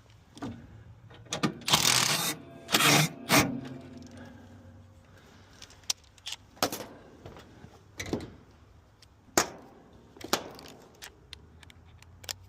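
Metal tools and hardware handled and clinking: irregular sharp clicks and rattles, with a louder clatter about two seconds in followed by a brief metallic ring.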